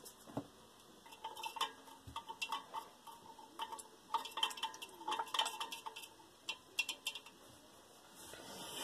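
Wooden stick stirring softening beeswax in a tin can set in a water-filled cast iron pan, making an irregular run of light taps and clinks as it knocks against the can's metal sides.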